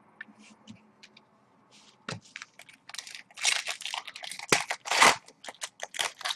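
Trading cards being shuffled and handled, giving a run of short crinkling, scraping rustles that start about two seconds in and grow thicker and louder in the second half.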